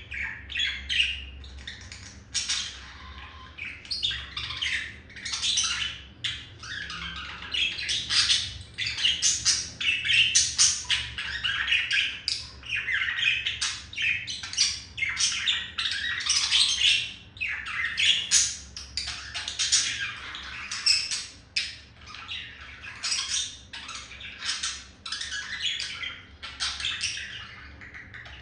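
Male budgerigar's courtship warble: a continuous, rapid run of chattering chirps and squawks.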